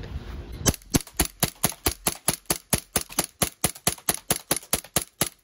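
Green-gas blowback airsoft Glock 19X pistol fired rapidly in semi-auto, about five shots a second, in an unbroken string of sharp cracks. The string starts just under a second in and cuts off suddenly near the end.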